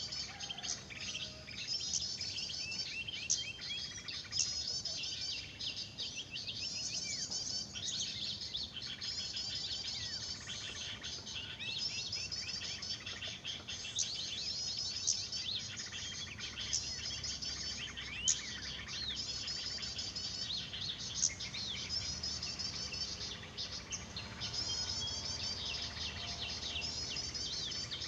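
Many small songbirds chirping and calling at once, in short, quick phrases that repeat every couple of seconds, with faint insect buzz underneath.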